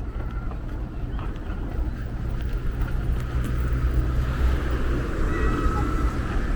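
Low, steady rumble of a motor vehicle, growing gradually louder.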